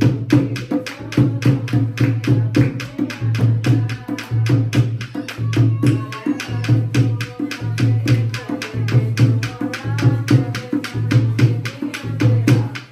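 Dholki, a two-headed barrel drum, played by hand in a fast, even folk rhythm, about five strokes a second, with a deep bass stroke landing roughly once a second. Hand claps keep time with it.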